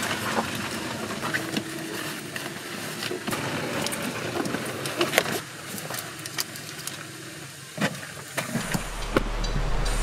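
Backpack gear being handled and put on: fabric rustling with many small, sharp clicks of straps and buckles, over a steady outdoor background hiss.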